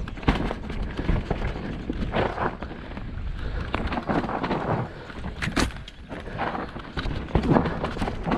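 Mountain bike riding fast down a dirt forest singletrack: tyres rolling over dirt, stones and roots, with the bike rattling and knocking sharply over bumps at uneven intervals. Wind rushes on the action camera's microphone.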